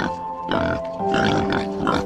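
Soft instrumental background music with held notes, over domestic pigs grunting in short bursts.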